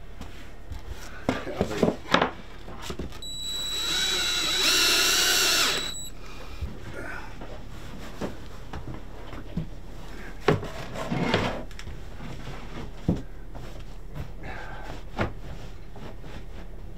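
A power tool's motor runs for about three seconds a few seconds in, its pitch wavering. Scattered knocks and clicks come before and after it.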